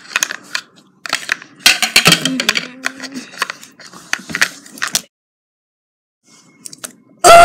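Small plastic toy figure and plastic doll furniture clicking, knocking and scraping on a hard floor as they are handled, for about five seconds. After a short silence, a loud voice cuts in right at the end.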